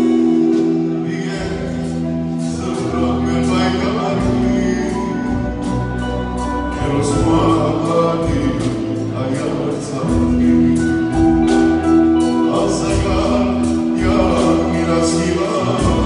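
A man singing through a microphone with a live band: electric guitars, keyboard and drums keeping a steady beat under long held notes.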